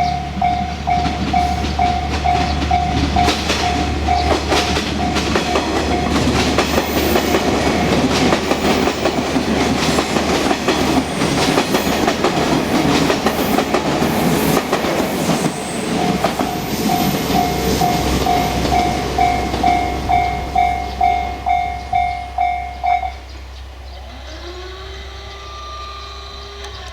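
Japanese level-crossing warning bell ringing about twice a second while a train passes over the crossing, its wheels clacking on the rail joints. The train's rumble drowns the bell through the middle. The bell stops a little after two-thirds of the way through, leaving a few faint sliding tones.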